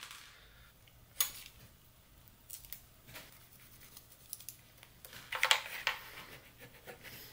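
Faint, sparse snips and clicks of scissors cutting, with light handling of small parts between them; the loudest cluster of snips comes about five seconds in.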